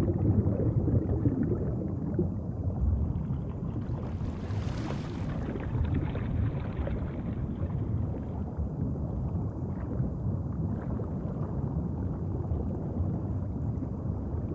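Low, rumbling underwater ambience. About four to five seconds in, a brief hissing whoosh swells and fades over it.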